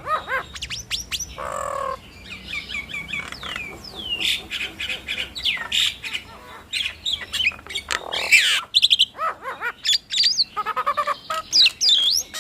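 Nias hill mynas calling in a duet: a fast, varied run of loud whistles, rising and falling glides, squawks and sharp clicks.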